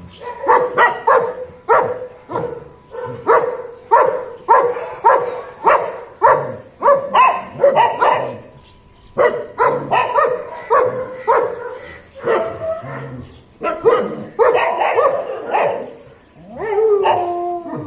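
A pack of dogs barking and yipping excitedly in anticipation of feeding, two to three sharp barks a second with brief lulls. Near the end comes one long falling whine.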